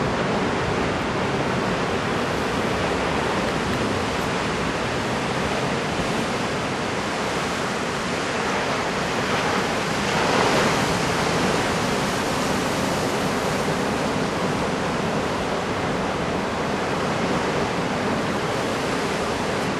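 Steady rushing noise of heavy typhoon surf breaking offshore, growing louder for a moment about halfway through.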